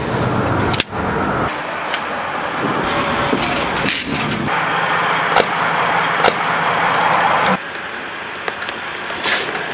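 Railway train wheels rolling slowly along the rail, crushing small objects with scattered sharp cracks and pops. The noise changes abruptly several times, getting louder about four and a half seconds in and dropping back about seven and a half seconds in.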